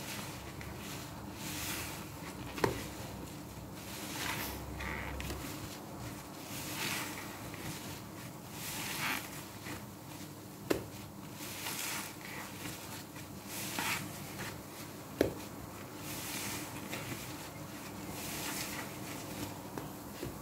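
Soapy sponges squeezed by hand in a tub of thick laundry-liquid suds: wet squelching and fizzing foam in repeated squeezes, about one every two seconds. Three short sharp clicks stand out, a few seconds apart.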